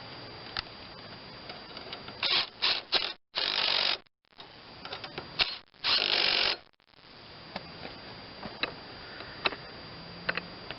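Hand-tool work on a lawn tractor mower deck while spindle bolts are being fitted: scattered sharp metallic clicks, with a few short loud bursts of noise about two to four seconds in and again about six seconds in.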